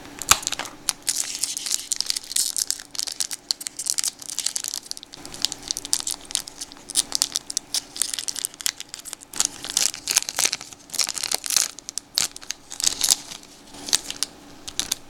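Shiny foil wrapper of a 1992 Donruss baseball card pack being torn open and crinkled in the hands: a dense, irregular run of crackles and rips.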